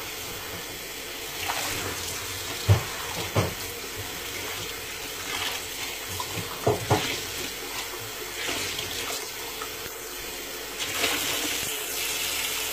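Kitchen tap running steadily into a sink while a glass is rinsed under it, with a few short knocks and clinks of the glass; the running water grows louder a little before the end.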